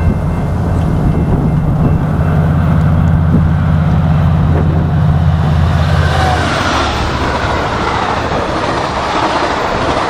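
Amtrak Pacific Surfliner train passing close by behind an EMD F59PHI diesel-electric locomotive: a loud low engine drone. About six and a half seconds in, the drone falls away as the locomotive goes by, and the rushing wheel-on-rail noise of the bilevel passenger cars takes over, with faint wheel squeal.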